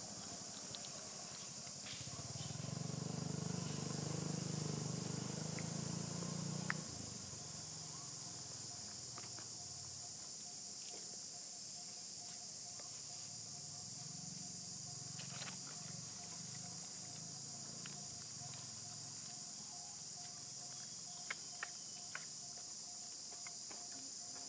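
Steady high-pitched chorus of insects. About two seconds in, a low hum swells for several seconds, then stops suddenly with a click. A few light ticks come near the end.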